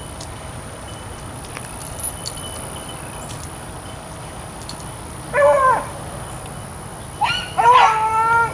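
Beagle baying on a rabbit's scent trail: a short bay about five seconds in, then a longer, drawn-out bay near the end.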